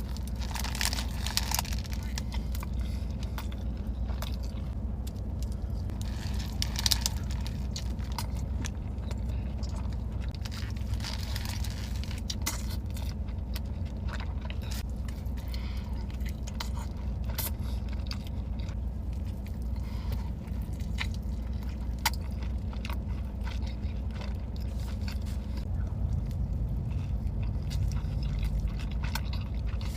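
A person eating close to the microphone, with crunchy bites and chewing, over a steady low hum.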